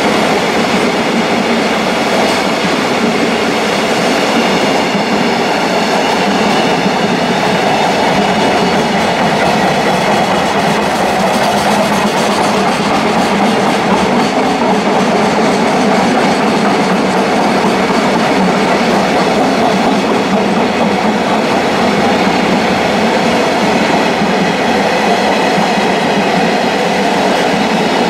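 Wheels of a long JR Freight container train of Koki flat wagons rolling past at close range: steady, loud wheel-on-rail noise from the passing wagons.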